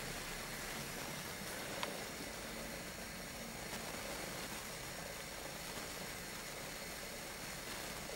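Quiet, steady hiss of room tone with one light click about two seconds in.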